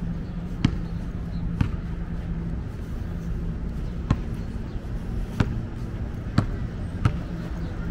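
Footsteps on pavement: about six sharp, irregularly spaced knocks over a low steady rumble.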